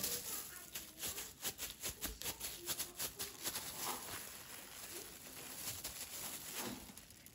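Plastic bag crinkling and rustling as a bag-covered hand handles the meat, with a quick run of crackles in the first few seconds that thins out later.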